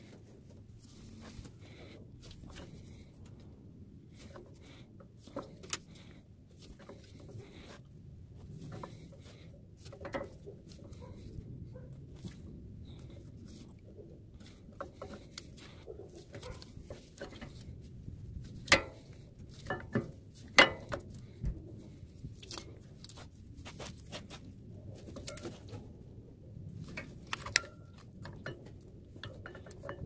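Scattered light metallic clicks and knocks of an old brake pad worked against a Toyota Tundra's four-piston front brake caliper as the pistons are pushed back in, with the two loudest knocks about two-thirds of the way through, over a faint low background rumble.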